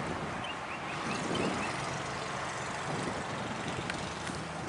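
Steady hum of distant road traffic, with a few faint high chirps in the first second and a half and a couple of faint clicks near the end.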